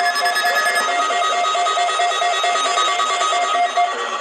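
Weather radio receivers sounding their electronic alert beep, pulsing about four times a second over the mixed audio of other radios, stopping just before the end.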